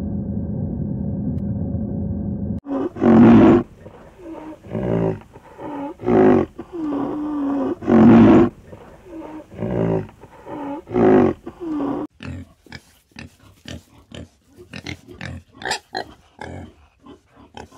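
A steady low rumble, cut off about two and a half seconds in by a large animal's loud drawn-out calls, about six of them. From about twelve seconds in, a group of pigs grunts and squeals in quick short calls.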